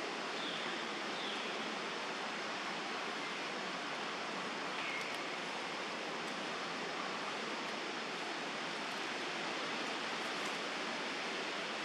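Steady, even hiss of outdoor background noise, with no distinct sound standing out.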